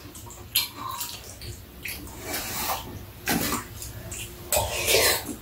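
Eating at a table: spoons and chopsticks clicking against bowls and a pan a few times, then soup slurped from a bowl, the slurp the loudest part, near the end.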